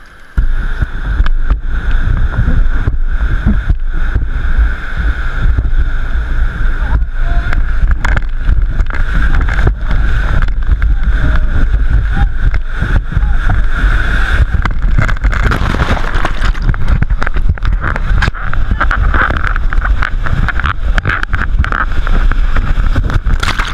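White-water rapids rushing loudly around an inflatable raft, with water splashing and buffeting a close action-camera microphone; the noise starts abruptly just after the beginning and stays loud and unbroken.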